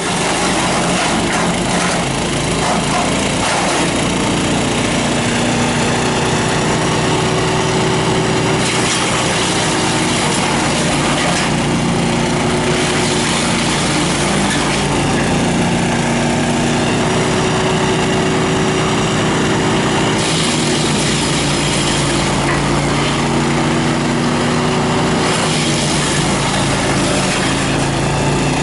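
Wood chipper's engine running steadily, with several stretches of louder rushing noise on top of the engine's hum.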